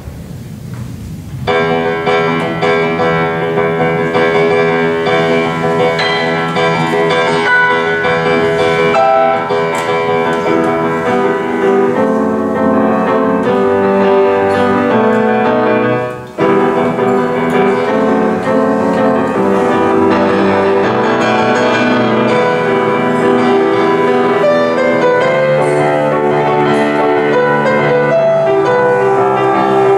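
Grand piano playing a piece, starting about a second and a half in, with a brief break in the sound about halfway through.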